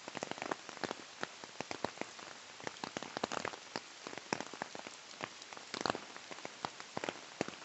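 Swollen, flooded river rushing and splashing, a steady wash of water noise full of small crackling splashes, with a louder splash about six seconds in.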